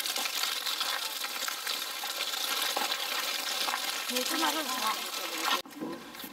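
Small wheels of an umbrella stroller rolling over a gravel trail, a steady crunching noise with footsteps, cutting off suddenly about five and a half seconds in.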